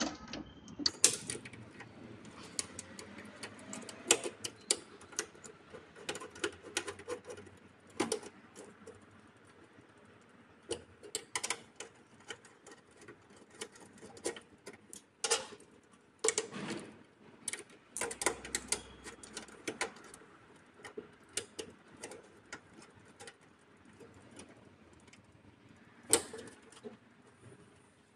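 Irregular small metallic clicks and rattles of a hex key working the terminal screws of a DC circuit breaker as cable lugs are tightened into it, with a few louder knocks.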